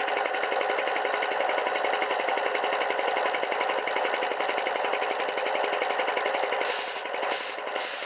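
Air compressor running, its pump making a rapid, even pulse. Near the end come three short bursts of hiss.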